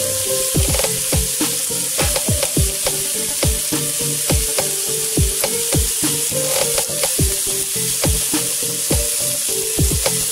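Lamb steaks sizzling in a hot ridged grill pan: a steady frying hiss with frequent sharp crackles of spitting fat.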